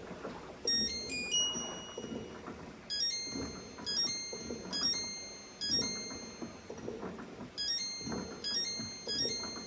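Background music: a light keyboard tune of short, repeated notes.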